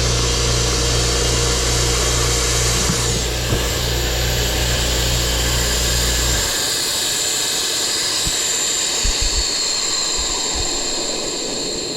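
Kobalt air compressor's electric motor and pump running steadily, then shutting off suddenly about six and a half seconds in. Compressed air hisses out of the tank's open drain valve throughout and keeps hissing after the motor stops, slowly fading.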